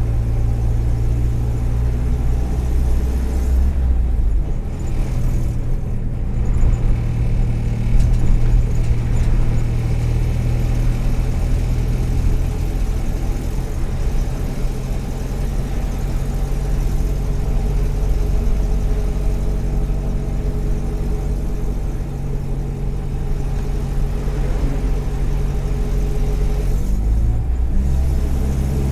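Volkswagen EA111 1.4-litre four-cylinder engine of a 2009 Kombi running under way on the road. Its note drops about four seconds in and climbs again near the end. The engine misfires at times because of worn spark plug leads and ignition coil, and its exhaust manifold is probably cracked; loose trim rattles with it.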